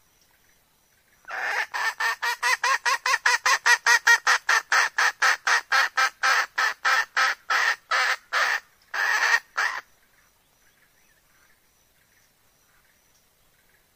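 Red junglefowl hen giving its call: a fast run of about thirty short, sharp clucks, about four a second, that slows toward the end and stops after about eight seconds. It is the hen call used to draw wild junglefowl.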